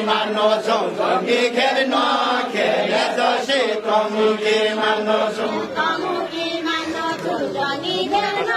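Deuda folk song: a group of men chanting a verse together in a steady, drawn-out melody while they dance with linked arms.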